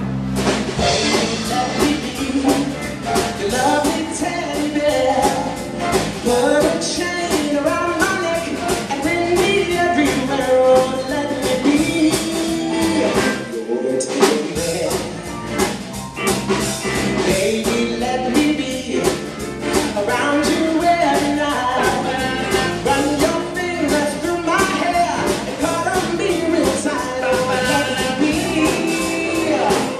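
Live rock-and-roll band, with drum kit and electric guitars, playing a 1950s-style number while singers take turns and join in on the vocal. The music kicks in all at once at the start and keeps a steady beat.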